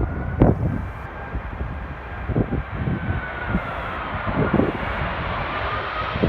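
An airliner's jet engines on landing approach, growing louder as the plane nears, with a faint whine over the engine noise. Strong gusty wind buffets the microphone with low rumbles.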